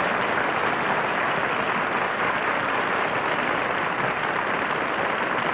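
Studio audience applauding steadily, heard through the narrow, muffled sound of an old television recording.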